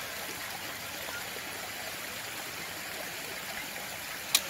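Shallow creek water running steadily over rocks, a constant babbling rush. A single sharp knock near the end.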